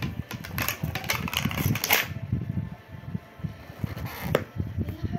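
Close handling noise from a styrofoam takeaway food container being held and turned in the hands: quick scraping and rustling for the first two seconds, then quieter, with a single sharp click about four seconds in.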